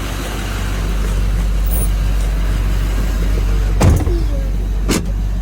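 Ford 6.0 Power Stroke V8 turbo-diesel idling steadily, with two sharp knocks about four and five seconds in.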